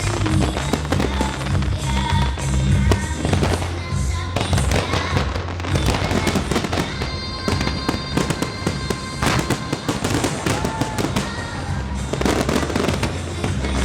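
Fireworks bursting and crackling in rapid succession, layered over loud music with a steady bass line that accompanies the display.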